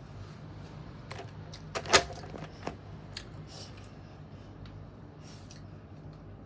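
A child chewing and handling a crisp snack: scattered short clicks and crunches, with one sharp, loud click about two seconds in, over a steady low hum.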